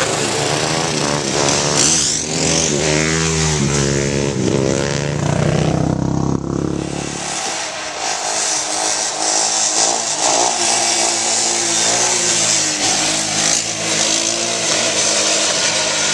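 Dirt bike and ATV engines revving hard, their pitch climbing and dropping again and again as they accelerate and shift gears. A deep steady drone sits under them for the first half and then stops.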